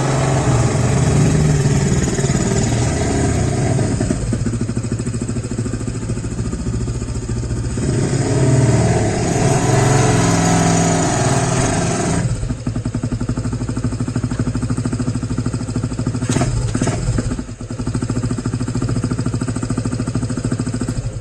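Custom chopper motorcycle engine running, louder and fuller twice in the first half, then settling to a steadier idle with a few clicks, and cutting off suddenly near the end.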